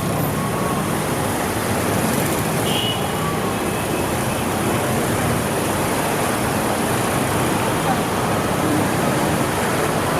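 Steady traffic noise of cars moving along a flooded street, a continuous even hiss of engines and tyres in water.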